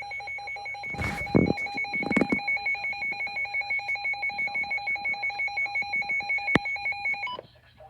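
Weather radio alert alarm: a fast-pulsing electronic beeping that cuts off sharply about seven seconds in. There are two dull knocks in the first couple of seconds.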